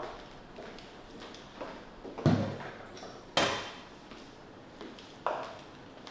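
Sharp knocks and cracks during a chiropractic adjustment, joints popping and the body against the treatment table: a deep thump about two seconds in, a sharp crack a second later, and a smaller crack near the end.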